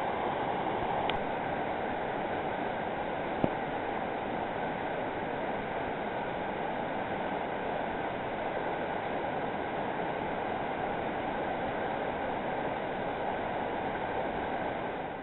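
Steady rushing of river water, an even noise. A single short knock sounds about three and a half seconds in.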